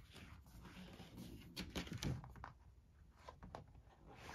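Faint handling sounds from a large folded paper gaming mat: a few light rustles and clicks, clustered about one and a half to two seconds in and again past three seconds.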